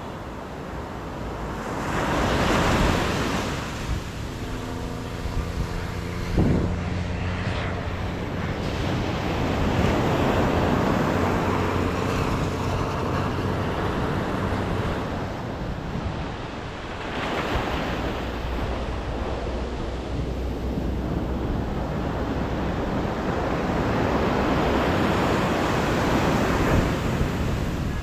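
Atlantic Ocean surf: waves breaking and washing up the beach in repeated swells, with wind buffeting the microphone. A low, steady, pitched drone sounds under the surf for a few seconds, starting about four seconds in.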